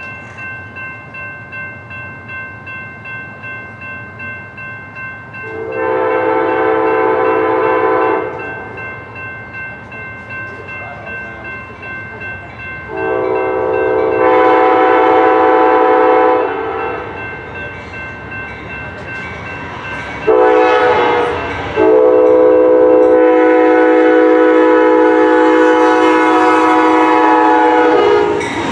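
Amtrak passenger locomotive's horn sounding the grade-crossing signal on approach: two long blasts, a short one, then a final long one held until the locomotive arrives. Under it a grade-crossing bell rings steadily, about two strokes a second.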